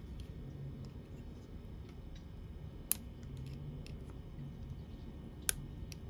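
Faint ticks and two sharp clicks, one about halfway and one near the end, from a small plastic wiring connector being handled with gloved hands and a thin tool.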